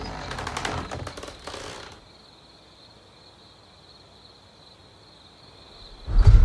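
Horror trailer sound design: a rapid run of irregular clicks and crackles that fades out over about two seconds. A faint steady high hiss follows, then a sudden loud low hit near the end.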